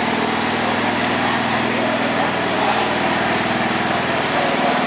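Small lawn and garden tractor engine running steadily, with an even pulsing beat.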